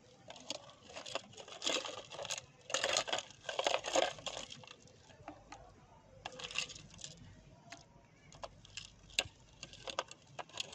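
Ice cubes dropped by hand into a glass jug of drink, clinking and knocking against the glass in irregular clusters.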